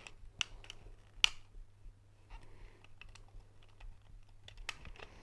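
Scattered sharp clicks and taps of plastic toy parts being handled and opened, the loudest about a second in, over a faint steady low hum.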